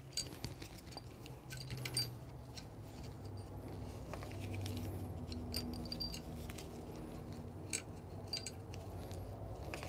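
Light clicks and small metallic rattles as the coffee grinder's lower burr and burr carrier are handled with gloved hands, over a faint low hum.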